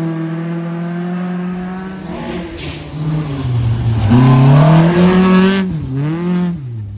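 Volvo 240 rally car's engine at high revs on a gravel stage: held steady and slowly falling at first, then revving up and dropping back several times as the car passes. The sound jumps abruptly twice where the footage cuts between clips.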